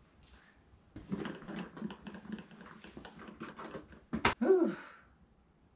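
Whiny, whimpering vocal sounds for a few seconds, then a sharp crack about four seconds in, followed by a short falling whine.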